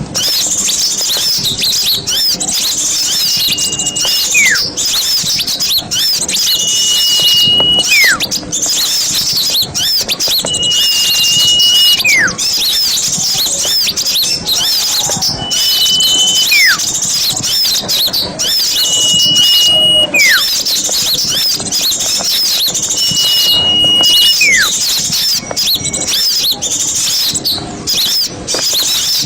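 Recorded song of small songbirds: a dense, high twittering chorus throughout. Over it, about every four seconds, comes a clear whistle: a short held high note, then a note that slides downward.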